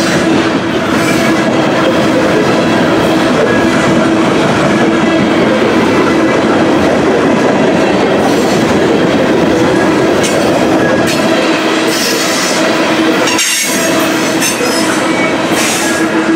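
Covered hopper cars of a long grain train rolling past: the steady, loud rumble and clatter of steel wheels on the rails, with a steady tone running through it.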